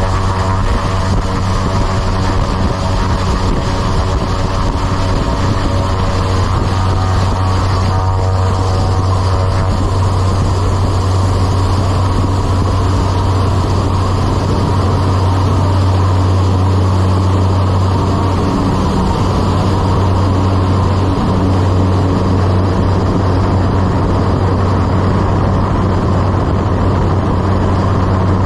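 Twin-engine propeller aircraft at takeoff power through its takeoff roll and lift-off: a loud, steady low propeller drone, with a higher engine whine that gives way to rushing noise after about nine seconds as the plane gathers speed.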